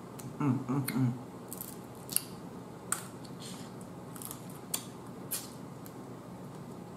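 Eating boiled blue crab by hand: sharp cracks and snaps of shell being broken apart, with wet sucking and smacking as meat is pulled from the shell pieces. A few short hums of enjoyment come about half a second in.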